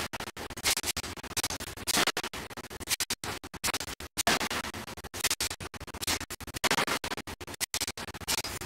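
Open-die forging of a red-hot steel ring on a mandrel: noisy forging machinery, with a burst of hiss about every second or two over constant rumbling noise.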